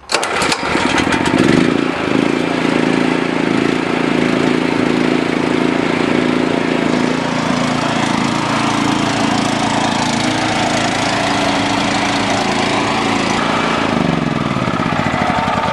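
Chinese Honda-clone single-cylinder overhead-valve small engine running steadily, cutting in suddenly at the start, with a brief shift in pitch near the end.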